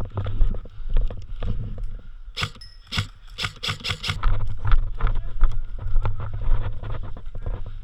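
A quick string of about eight sharp airsoft gun shots, about 2.5 to 4 seconds in, over steady thumping and rustling from a player moving with the camera.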